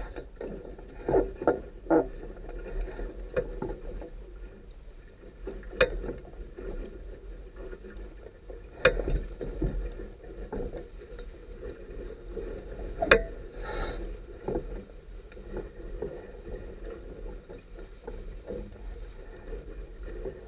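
Water rushing and splashing along the hull of a Sunfish sailboat under way, over a steady low rumble. A handful of sharp knocks or slaps stand out, the loudest about 13 seconds in.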